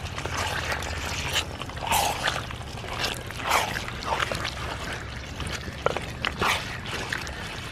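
Wooden spatula stirring chunks of raw mutton through wet masala in a clay pot, making irregular wet squelches and scrapes.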